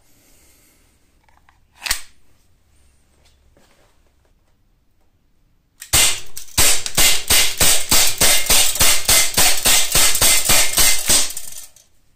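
Umarex Glock 19 CO2 BB pistol, a non-blowback model firing 4.5 mm steel BBs, shot in a rapid string of about twenty shots at roughly four a second. Each shot is a sharp pop. A single sharp click comes about two seconds in, before the shooting starts.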